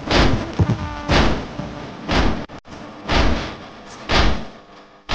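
Matam, the rhythmic beating of the chest with the hands that keeps time in a noha lament: heavy thumps about once a second.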